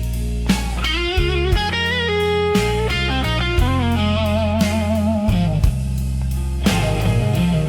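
Slow blues rock instrumental passage: an electric guitar plays a lead line with bent, vibrato-laden notes over steady bass and a drum kit keeping a regular beat.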